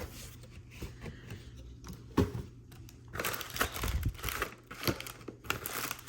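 Packaging being handled: a few light knocks, then from about three seconds in, crinkling and rustling of wrapping around a plastic cat bowl.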